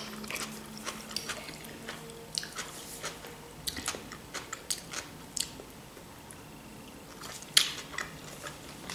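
Close-up chewing of pan-fried pelmeni and vegetable salad: soft mouth sounds broken by many small crunches and clicks. One louder click comes near the end.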